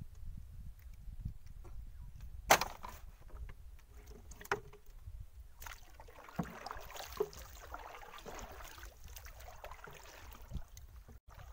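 Wooden paddle and dugout canoe handled on the water: a sharp knock about two and a half seconds in, a couple of lighter knocks, then water swishing as the paddle moves, over a low wind rumble on the microphone.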